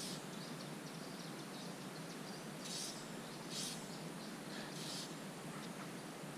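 Outdoor ambience: a steady hiss, with three brief soft swishes about three, three and a half and five seconds in.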